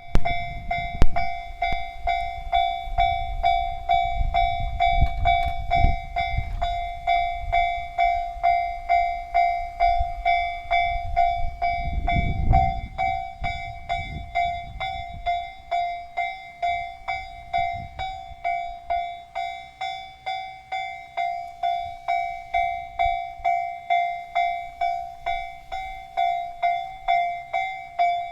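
Railway level crossing warning bell ringing its repeated electronic clang, just under two strokes a second, throughout. Under it a diesel train's low rumble rises, is loudest about twelve seconds in, and dies away after about sixteen seconds.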